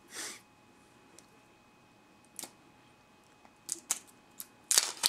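A few separate small clicks and crinkles of plastic as the cap and seal of a small hot sauce bottle are worked open by hand, the loudest a little before the end.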